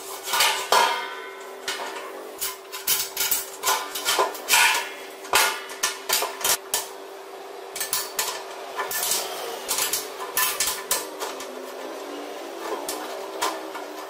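Large metal pot and steel strap fittings being handled: irregular clanks, knocks and clinks of metal on metal, some leaving a brief ring from the pot, over a faint steady hum.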